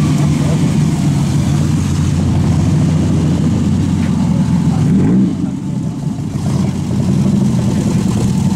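Open sports cars' engines running with a low rumble as a TVR roadster and then a Cobra-replica roadster pull slowly past, with a brief blip of revs about five seconds in. Voices of onlookers chatting.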